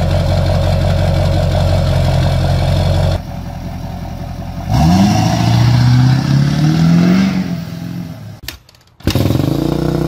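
Subaru WRX flat-four engine running after its rebuild, heard in several edited clips: a steady run, then after a cut about three seconds in it revs up with rising pitch and falls back. A short, nearly silent gap follows, then it runs and revs again.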